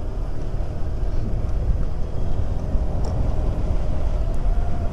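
Honda Click 125 scooter's small single-cylinder engine running at riding speed, its hum under a heavy low rumble of wind on the microphone; the engine note edges up slightly near the end.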